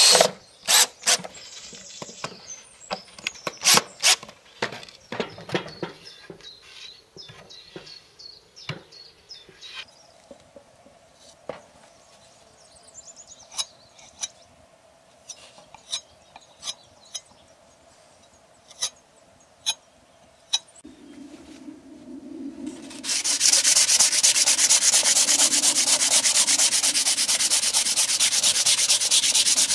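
Hand sanding of plywood with sandpaper: a steady, loud scratchy rubbing that starts about 23 seconds in and is the loudest sound. Before it, a cordless drill cuts off right at the start, sharp clicks and knocks follow for several seconds, and then comes a quieter stretch of occasional ticks as a filling knife spreads wood filler on the plywood.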